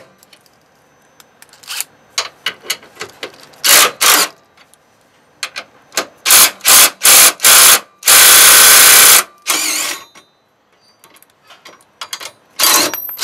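Cordless DeWalt impact driver with a 15 mm socket, loosening tow-hook bolts. It runs in short trigger bursts, with one steady hammering run of about a second just past the middle.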